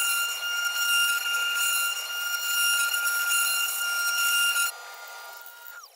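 Desktop CNC router's brushed DC spindle motor whining steadily while its bit cuts into a wooden coaster, the level wavering with the cut. About three-quarters of the way through the sound drops sharply. Near the end the remaining whine falls in pitch as the spindle winds down.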